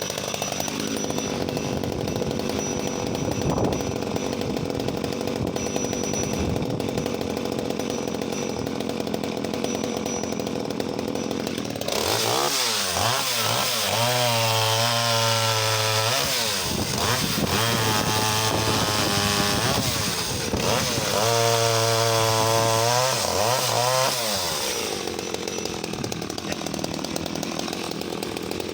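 Danarm 1-36 MK3 vintage 34cc two-stroke top-handle chainsaw running at low speed for about twelve seconds, then taken up to high revs in three spells of a few seconds each with short drops between, before settling back to a lower, steady speed near the end.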